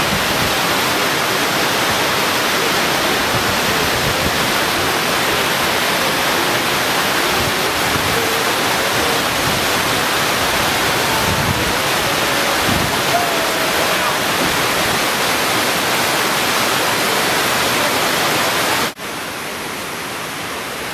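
Steady rushing noise, like running or falling water. Near the end it cuts off abruptly to a quieter hiss.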